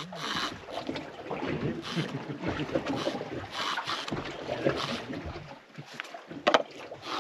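Water slapping and splashing against the hull of a small fishing boat at sea, in uneven surges, with wind on the microphone. A single sharp knock about six and a half seconds in.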